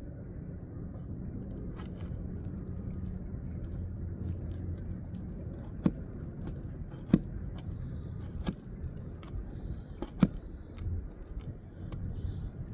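Light taps on a pry bar being worked in between roof shingles to get under a nail: four sharp knocks a second or so apart, in the second half, over a low steady rumble.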